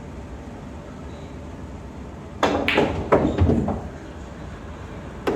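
A quick run of clattering knocks and clinks about two and a half seconds in, lasting about a second, then one more knock near the end, over a steady low background hum.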